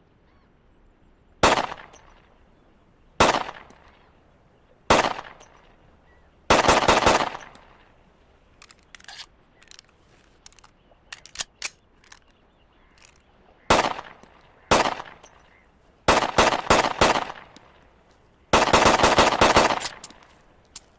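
Browning Hi-Power pistol gunshots: three single shots a couple of seconds apart, then a quick string of about five, some fainter clicks, two more single shots, and two rapid strings of shots, the last the longest.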